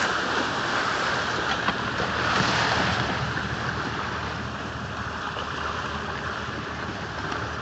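Sea water washing around a small motorboat drifting with its engine idling in neutral, with wind on the microphone. The sound is loudest at first and eases off slightly.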